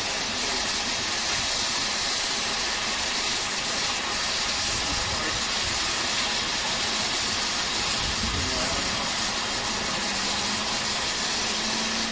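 LMS Fowler 4F 0-6-0 steam locomotive standing with a steady hiss of steam.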